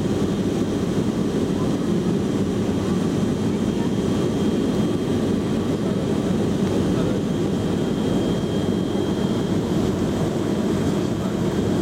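Steady in-flight cabin noise of a Boeing 707-300 heard from the rear cabin, its engines and the airflow making a low, even noise, with a faint high whine over it.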